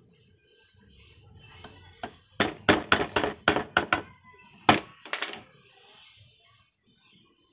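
Sharp taps or knocks of something hard being struck: a quick run of about eight over a second and a half, starting about two and a half seconds in, then a few more after a short pause.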